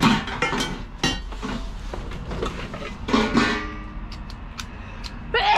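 Clinks, knocks and clatter of a silver-plate serving platter and other items being handled in a cardboard box. A louder clatter with a brief metallic ring comes about three seconds in.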